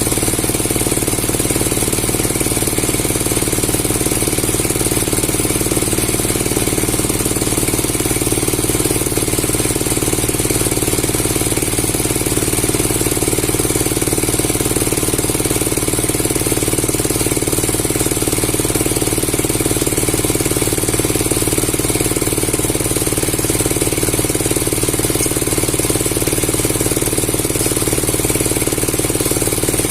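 A motor-driven machine running steadily and loudly, with a fast, even pulsing that does not change.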